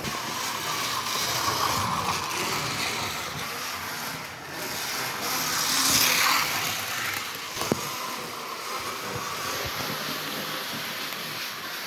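Model train running on its track: a steady motor whir and wheel rumble with small clicks from the rails, swelling louder around the middle, with one sharper click about two-thirds of the way through.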